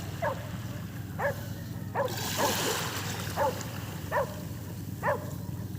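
A dog yipping in short barks, about seven in a row, each dropping in pitch, over a steady low hum.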